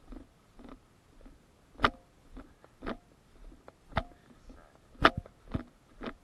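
Footsteps at a walking pace, about two steps a second, some landing much harder and sharper than others.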